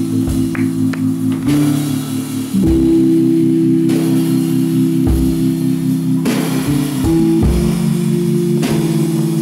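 Live band playing an instrumental intro: sustained electric guitar and bass chords that change every second or so, with a low thump about every two and a half seconds.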